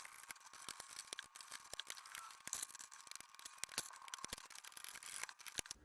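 Screwdriver taking out a PC motherboard's mounting screws: a faint, rapid run of small metallic clicks and ticks.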